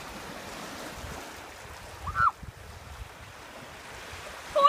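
Small waves lapping on a sandy shore, with wind blowing across the microphone. A brief high-pitched cry rises and falls about two seconds in.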